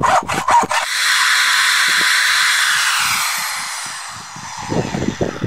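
Cordless drill boring a hole into a wood log: a steady whirring hiss that starts about a second in and fades away about three seconds later.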